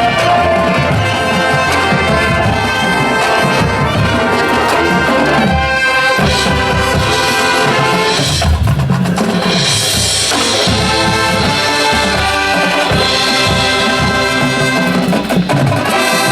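Marching band playing loudly and continuously: massed brass, trumpets and trombones, over drums.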